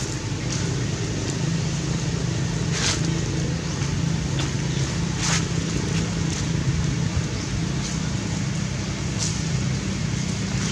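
A steady low rumble of background noise, with two brief swishes about three and five seconds in.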